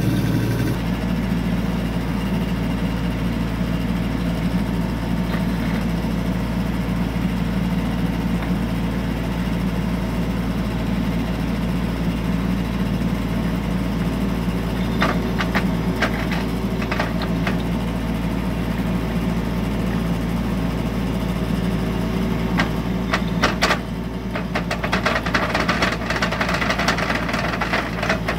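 Kubota U25 mini excavator's diesel engine running steadily, with a few sharp clicks around the middle and a rapid run of clicks and knocks in the last few seconds.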